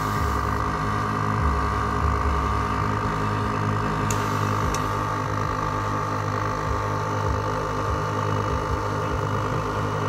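Steady mechanical hum with a constant high whine, with two light clicks about four and five seconds in.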